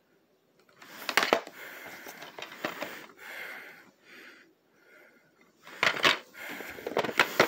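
Plastic DVD and VHS cases being handled and set down on a wooden table: a few sharp clacks about a second in and again near six and seven seconds, with a person's breathing close to the microphone in between.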